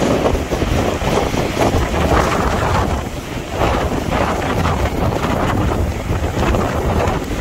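Hurricane-force eyewall wind roaring, loud and gusting, buffeting the microphone in surges that swell and ease every second or two.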